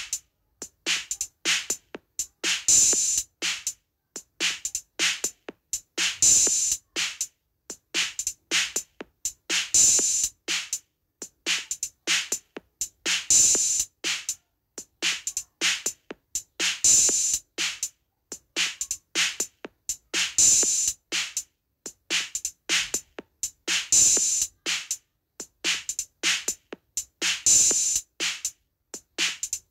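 Rhythmic drum beat in a Turkish halay dance rhythm (oyun havası): a short pattern of dry hits that loops about every three and a half seconds, each cycle opening with a louder, bright hissing accent.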